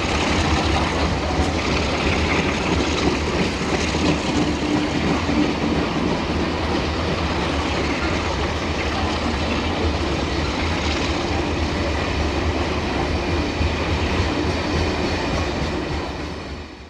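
Loaded coal wagons of a freight train rolling past, with steady wheel-on-rail noise and clickety-clack. The sound fades out near the end.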